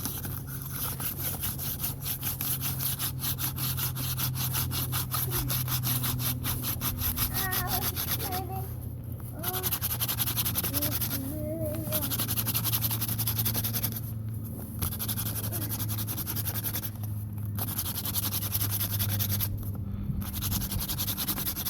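Wooden hand-drill spindle spun between the palms, grinding in the socket of the hearth board as friction fire-making. It is a continuous rapid rubbing, broken by brief pauses about every three seconds as the hands return to the top of the spindle.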